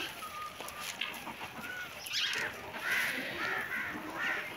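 Domestic hens calling, a quick series of short, arched squawking notes starting about two seconds in.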